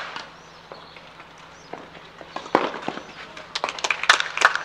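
Tennis ball struck by rackets during a rally on clay, a few sharp hits spread over the first two and a half seconds. Then scattered clapping from a small crowd starts about three and a half seconds in, as the point ends.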